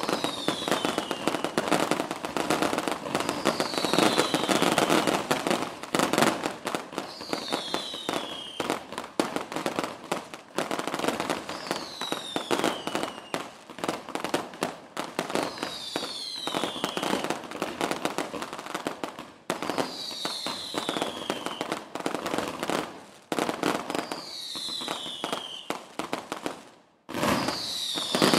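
Town fireworks display heard from about 50 m away: a dense, continuous rattle of bangs and crackles, with a falling whistle about every four seconds. It drops out briefly near the end, then comes back at its loudest.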